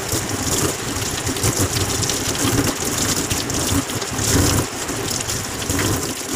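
Tap water running and splashing steadily onto a bunch of guava leaves rinsed by hand in a stainless steel sink.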